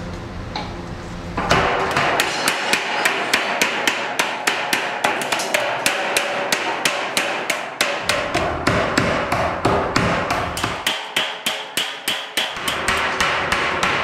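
Hammer blows on the rim of a sheet-metal washing machine drum: a steady, quick run of sharp metal strikes, about four a second, starting about a second and a half in.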